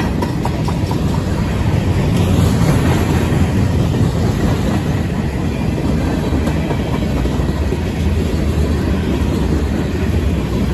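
Freight cars of a manifest train rolling past at close range: a tank car and covered hoppers, their steel wheels on the rails making a steady, loud low rumble.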